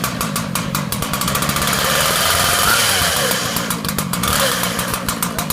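Two-stroke petrol engine of an ICS concrete chainsaw running just after starting, choke pulled out. The revs swell a couple of seconds in, then settle.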